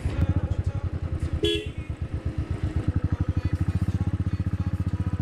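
Royal Enfield motorcycle engine running with a steady, rapid thumping exhaust beat while riding. A short horn toot sounds about one and a half seconds in.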